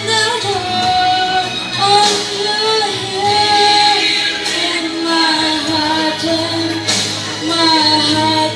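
A woman singing a slow song into a microphone, holding long notes that slide from one pitch to the next.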